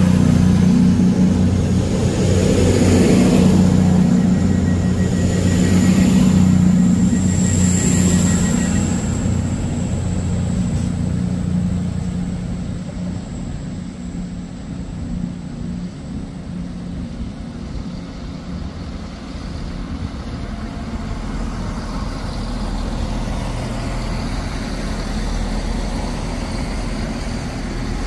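Diesel train engine running loud, with a high whine that rises over the first eight seconds, then receding after about ten seconds into a quieter, steady rumble.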